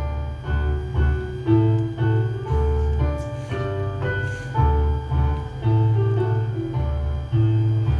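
Keyboard accompaniment playing the instrumental interlude of a march on a piano sound: a melody of short separate notes over strong, regularly repeated bass notes, with no voices.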